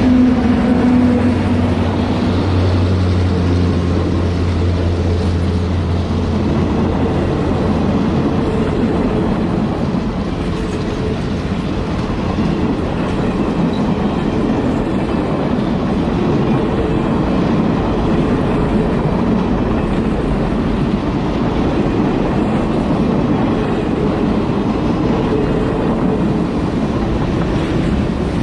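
Diesel-hauled excursion passenger train passing close by: the locomotive's engine drones low for the first several seconds, then the passenger cars roll past with a steady rumble of wheels on the rails.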